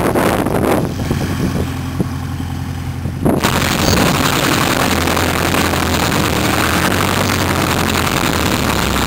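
Piper PA-19 Super Cub's piston engine and propeller running steadily at taxi power. At first it is heard from beside the taxiway; about three seconds in it switches to on board, where it is louder and carries a strong hiss of propeller wash and wind.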